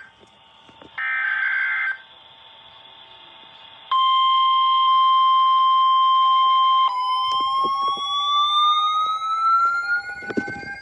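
Emergency Alert System audio from NOAA Weather Radio. About a second in comes a one-second warbling burst of SAME digital data. About four seconds in, the steady 1050 Hz warning alarm tone starts and holds for about three seconds, then gives way to a tone that slowly rises in pitch over a lower steady tone.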